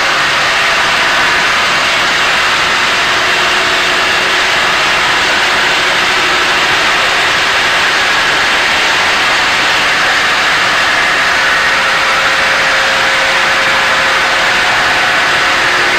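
Diamond wire saw cutting machine running steadily, a loud, even, hissing machine noise with a faint steady hum under it and no change in pace.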